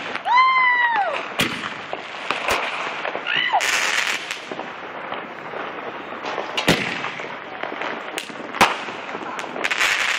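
Neighbourhood fireworks and firecrackers going off, with scattered sharp bangs through the whole stretch. A high call rises and falls just after the start, and a shorter one comes about three and a half seconds in.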